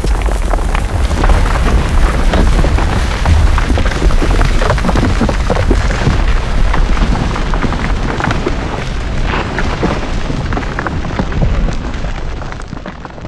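Volcanic eruption: a deep continuous rumble with dense crackling and popping, its highest part dying away over the last few seconds as the whole sound fades out near the end.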